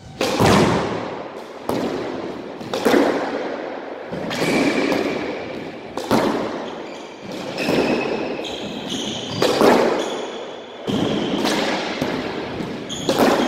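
A squash rally: the rubber ball cracking off rackets and the walls, sharp knocks about every second and a half, each ringing on in the enclosed court, with sneakers squeaking on the wooden floor in between.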